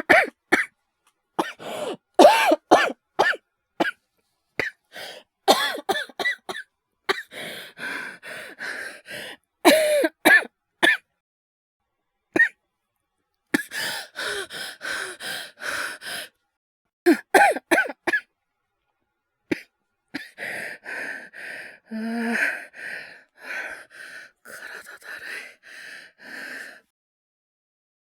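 A male voice actor's performed coughing fit: harsh, repeated coughs broken by gasps, then long runs of fast, ragged breathing, acted as a man sick with fever and an asthmatic cough.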